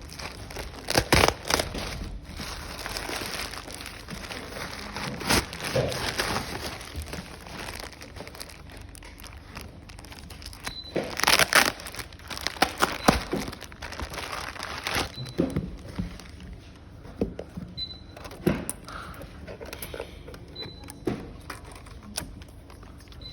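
Packaging crinkling and rustling in irregular bursts as a package is unwrapped and opened, with a few louder handling noises about halfway through.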